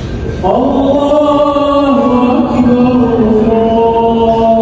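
Vocal intro of an Arabic nasheed entering about half a second in: long held sung notes with no instruments, stepping slowly between pitches, over a low background noise.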